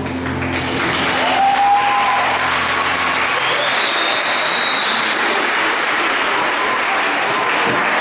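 Audience applauding at the end of a gymnastics floor routine, clapping building up within the first second and staying steady, while the floor-exercise music fades out about three and a half seconds in.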